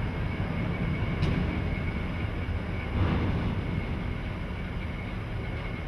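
Locomotive moving slowly through a rail yard: a steady low rumble with a thin high whine over it and a brief swell about three seconds in.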